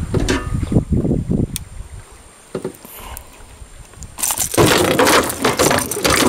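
Scattered metallic clinks and knocks as a traíra is unhooked from a lure with pliers in an aluminium boat. About four seconds in, a loud rushing noise starts and keeps going.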